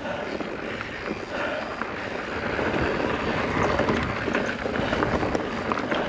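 Mountain bike rolling over a dirt trail: a steady rush of tyre noise with many small clicks and rattles from the bike, and wind on the microphone.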